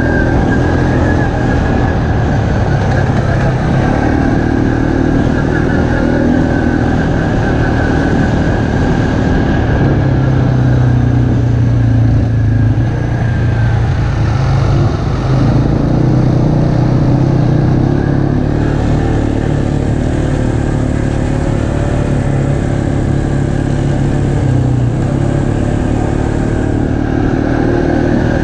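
ATV engine running steadily under way on a dirt trail, close to the microphone, its pitch stepping up and down a few times with throttle changes, over steady wind and trail noise.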